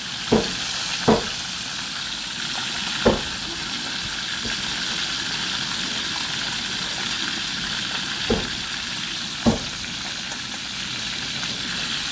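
Mujair fish frying in hot oil with a steady sizzle, broken by five sharp knocks spread through it.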